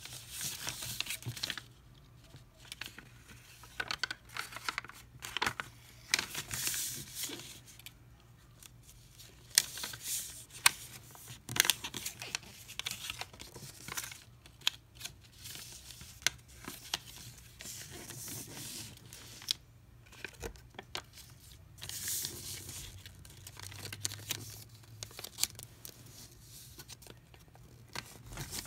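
A sheet of white paper being folded and creased by hand: irregular crinkles and rustles as fingers press and slide along the folds, with brief pauses between.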